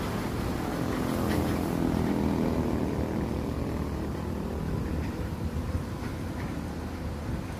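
Road traffic: a heavy truck's engine passing, loudest about two seconds in, over the hiss of tyres on the wet road.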